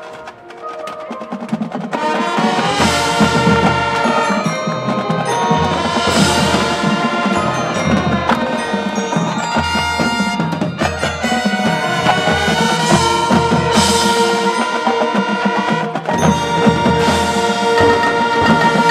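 Marching band playing, with front-ensemble mallet percussion and sustained full-band chords. The music opens softly and swells to full volume about two seconds in.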